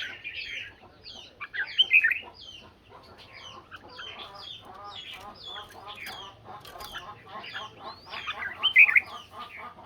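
Several red-whiskered bulbuls singing and calling against each other in a steady stream of short, quick notes, louder phrases breaking out about two seconds in and again near the end.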